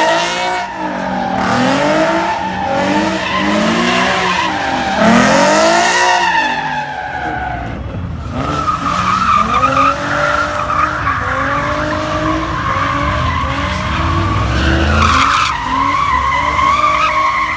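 A car engine revving hard over and over, its pitch climbing and falling about once a second, with tires squealing. From about eight seconds in, a steadier high tire squeal holds over the engine.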